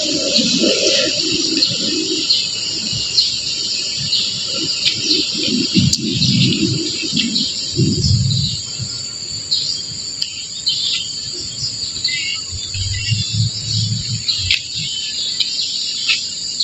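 Many birds chirping in a dense, continuous chorus, mixed with insects. Underneath, an irregular low rumble comes and goes.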